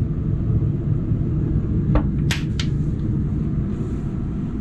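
Steady low rumble of air conditioning blowing from a galley vent. A few sharp knocks come about two seconds in as a hinged wooden countertop storage lid is handled.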